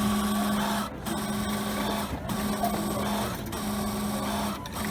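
A self-checkout kiosk's cash-handling motor hums in repeated stretches of about a second each, with short breaks between. This is the machine working through a cash payment and dispensing change.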